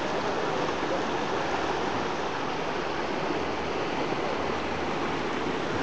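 Floodwater of a swollen river rushing steadily.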